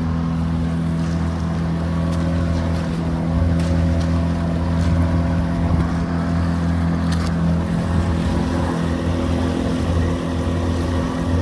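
Boat engine running steadily at constant speed, a low even drone.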